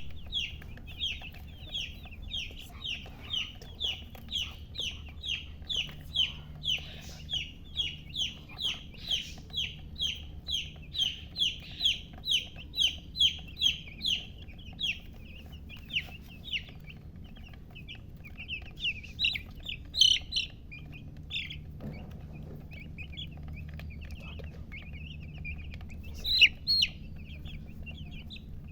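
Baby chicks peeping: a steady run of short, high, falling peeps, about two to three a second for the first half, then more scattered, with a couple of louder calls later on.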